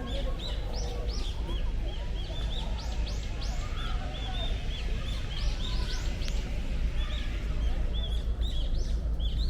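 Small birds chirping, a dense run of short, high calls repeated throughout, over a steady low rumble.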